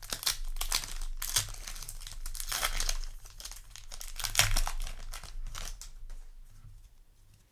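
Foil wrapper of a Yu-Gi-Oh! booster pack crinkling and tearing as it is opened and handled, tailing off near the end.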